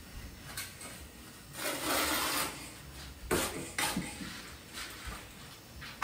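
Trowel scraping over Kerdi waterproofing membrane bedded in thinset mortar: one long scrape of about a second, then a few short scraping strokes.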